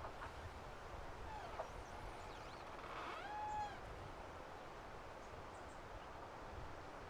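Wind rumbling on the microphone outdoors, with a short, arched, high call from an animal about three seconds in and a fainter falling chirp a second or so before it.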